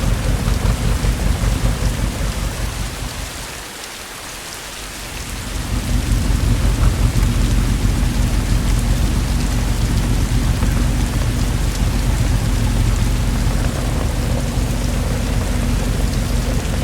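Heavy rain falling steadily, over a deep rumble of thunder. The low rumble dies away about three seconds in and builds back about two seconds later, while the rain goes on.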